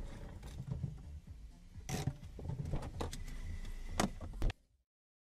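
Low steady rumble of a car running, heard inside the cabin through a dashcam, with a few sharp clicks and knocks, the loudest about two and four seconds in. The sound cuts off abruptly shortly before the end.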